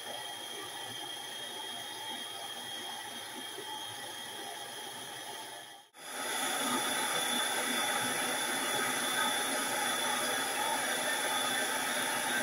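A steady hiss of water running from a kitchen tap into the sink, with a faint high whine under it. It cuts out for an instant about six seconds in and comes back louder.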